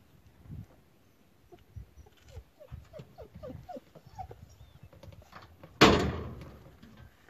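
A dog barking in short, falling yelps several times in quick succession, followed a little before the end by one sudden loud thump that dies away over about a second.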